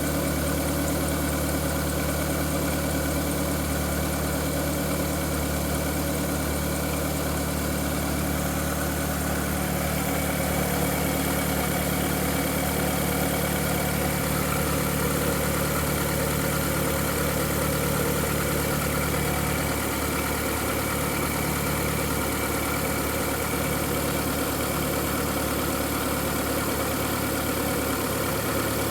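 Volkswagen Golf IV 1.6-litre 16-valve petrol engine idling steadily.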